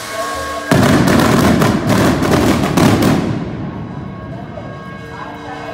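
Fireworks going off: a sudden dense run of cracks and bangs starting about a second in, lasting a couple of seconds, then dying away.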